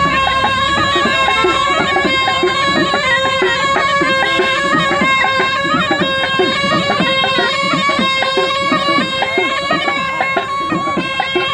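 Snake charmers' pungi (been) gourd pipes playing a continuous reedy tune over a steady drone, without a break.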